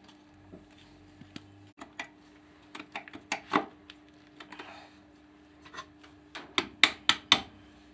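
Wrench loosening the connecting-rod cap bolts on a Mercedes M102 four-cylinder engine block: scattered metal clicks and taps, then a quicker run of sharp clicks in the last second and a half.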